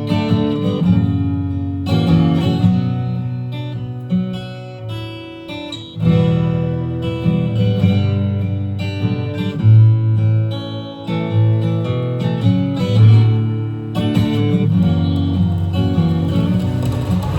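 Acoustic guitar strumming chords, an instrumental introduction with the chords changing every second or two.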